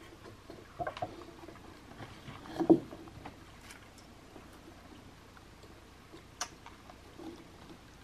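A carving knife whittling basswood: scattered short cuts and scrapes of the blade through the wood, the loudest about three seconds in, and a sharp click about six and a half seconds in.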